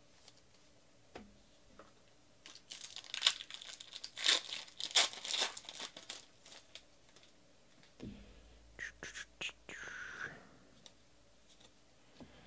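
Foil trading-card pack wrapper torn open and crinkled by hand, a dense crackling run from about two and a half seconds in to about seven seconds. A few light clicks and a short rustle follow about nine to ten seconds in as the cards are handled.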